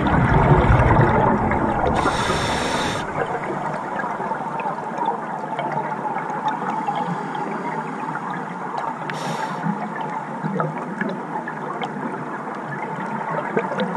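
Underwater sound of a scuba diver breathing through a regulator: a loud low gurgle of exhaled bubbles in the first two seconds, and a short hiss of inhalation about two seconds in and again around nine seconds. A faint steady crackle runs underneath throughout.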